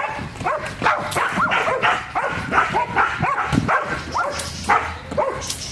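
A protection-trained dog barking over and over at a decoy, about two to three short barks a second without a break.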